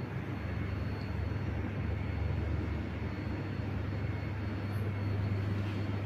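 Panasonic F-EY1511 60-inch industrial ceiling fan running at speed: a steady rush of moving air with a low rumble underneath.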